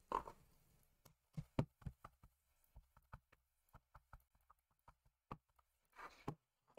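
Faint, irregular light taps of an ink pad being dabbed onto a clear stamp on an acrylic block, inking it: about a dozen soft knocks spread over several seconds.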